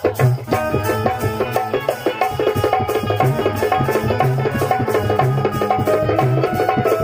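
Instrumental passage of live Punjabi folk music: a hand drum beats a steady rhythm under a sustained melody line.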